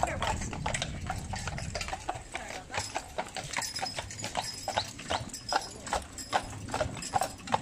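Hooves of a pair of draft horses clip-clopping on an asphalt street at a walk as they pull a carriage, in a steady irregular run of sharp strikes.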